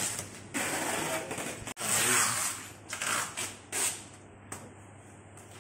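Cardboard being scraped and rustled against a sheet-metal machine housing in a few rough bursts during packing, dying down after about four seconds.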